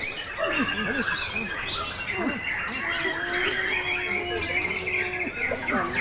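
Several caged white-rumped shamas (murai batu) singing at once at a songbird contest: a dense, unbroken mix of chirps, trills and whistles, with a low held tone about halfway through.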